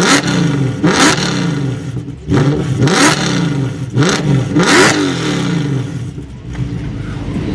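Mercedes C63 AMG Black Series 6.2-litre V8 with an iPE exhaust, revved in quick blips while standing: about four sharp revs, each rising and falling in pitch with a crack from the exhaust at its peak, settling back to a lower run between.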